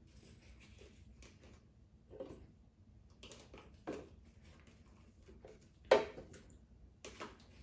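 A metal spoon scooping watermelon chunks out of a bowl and dropping them into a blender jar: a few soft knocks and clinks a second or two apart, the loudest about six seconds in.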